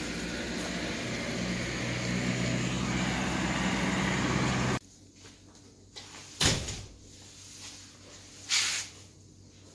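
Steady vehicle rumble with a low hum that grows louder, cut off suddenly; then a quiet room with one sharp knock and, about two seconds later, a brief hiss.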